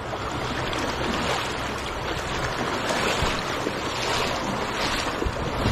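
Rushing river water and a person wading through it, the water sloshing around the legs with swells about once a second as he strides across.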